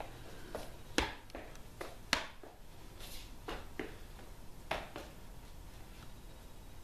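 Sharp clacks, taps and scuffs from a Kenpo double-stick form: the pair of sticks knocking and shoes striking and sliding on a concrete floor, with loud clacks about a second in, about two seconds in, and just before five seconds, and fainter taps and swishes between.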